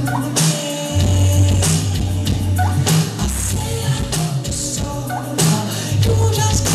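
Live rock band music played loud through a club PA, with electric guitar, keyboards, drum hits and a deep bass line that drops out for about the first second, then comes back in.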